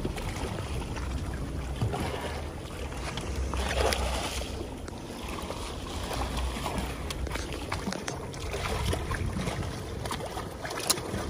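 A boat's engine running steadily under an even wash of water and wind noise.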